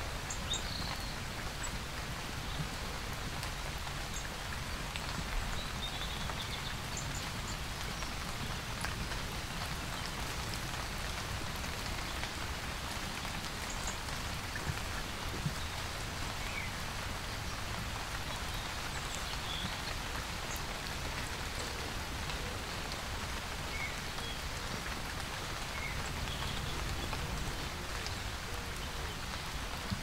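Steady rain pattering on the fabric of a Tragopan Hokki V3 pop-up ground hide, heard from inside, with a few slightly louder drops.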